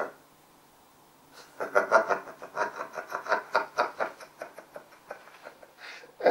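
A person laughing: a long run of short, rapid bursts starting about a second and a half in, after a brief sound at the very start.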